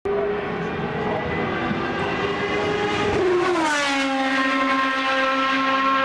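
Rebellion Lola B12/60 Toyota LMP1 prototype's V8 engine running at high revs on track, a steady high note that glides smoothly down in pitch about three and a half seconds in, then holds at the lower pitch.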